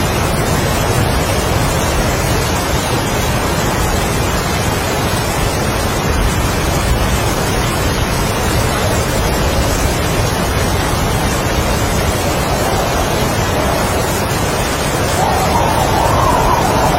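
Heavy rain with strong wind: a dense, steady wash of noise that swells slightly near the end.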